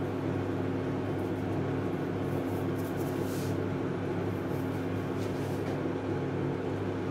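Steady low hum with fan-like noise from kitchen appliances, holding an even level, with faint brief hissing near the middle as seasoning is poured into the pot.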